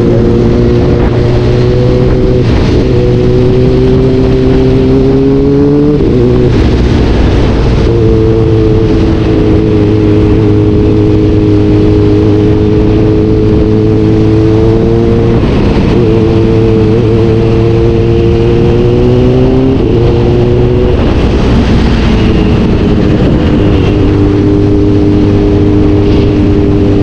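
A vehicle engine running steadily under load. Its pitch climbs slowly and drops sharply at shifts about 6, 15 and 20 seconds in.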